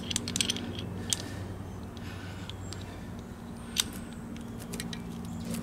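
Light metallic clicks and taps as a grease gun's hose and lock coupler fitting are screwed on and tightened by hand, most of them in the first second, over a steady low hum.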